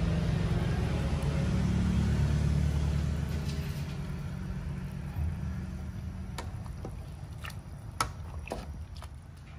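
A low rumble swells over the first few seconds and then slowly fades. From about six seconds in, several sharp clinks of a metal ladle against the stainless-steel soup pot, the loudest near the end.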